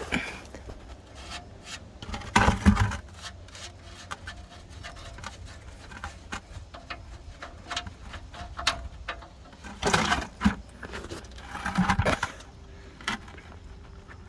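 Hand tools working the oil drain plug of a DT466 diesel's oil pan with a 1-1/8 inch socket: a run of small clicks, with louder clattering scrapes about two seconds in and twice more near the end.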